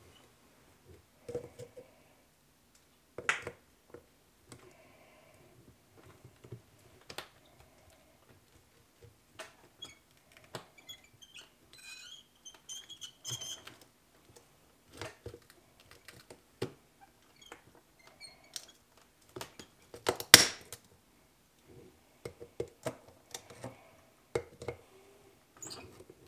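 Snap-ring pliers and small metal parts clicking and scraping as a retaining ring is worked off a tractor's bearing housing. Irregular light clicks, with one sharper metallic clack about twenty seconds in.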